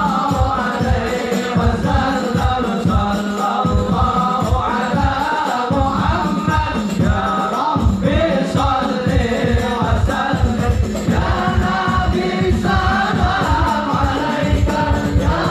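Group of voices singing an Arabic sholawat together, with frame drums beating a quick, steady rhythm underneath.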